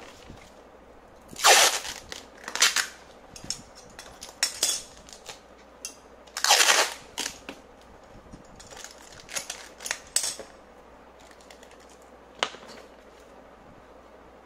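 Clear packing tape being pulled off the roll in several short, loud rips, with smaller crackles of tape and cardboard between them. One sharp click comes near the end.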